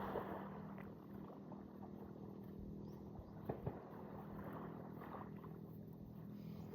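Faint steady low hum over a soft background noise, with two short knocks about three and a half seconds in.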